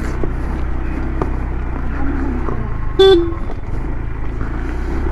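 Motorcycle engine running steadily, with one short horn toot about three seconds in.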